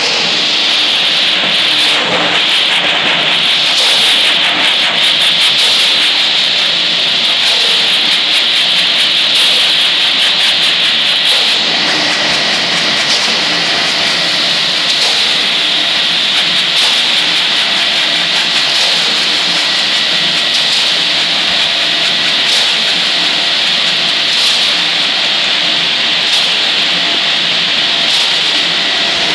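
A drum mixer turning, its wet load tumbling and scraping against the drum in a steady hiss with scattered clicks. Black granules are poured into the turning drum from a cardboard box partway through.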